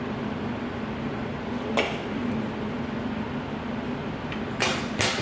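Steady hum from the powered vial crimper, broken by a sharp click about two seconds in and two short, sharp sounds close together near the end.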